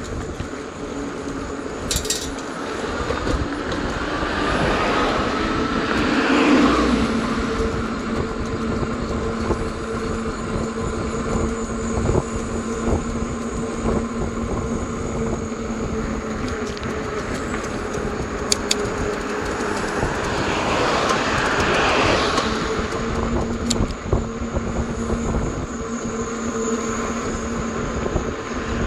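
Riding noise of a fat-tire electric bike with a 750-watt motor, pedalled in a high gear: wind on the microphone over a steady hum from the motor and 4-inch tyres. Two vehicles pass, swelling up and fading about six and twenty-two seconds in.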